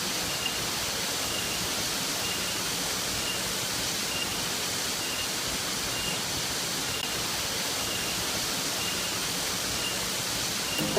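Steady rush of the Sedinding waterfall, about 8 m of water falling over a rock face into a pool. A faint high chirp repeats about twice a second over it.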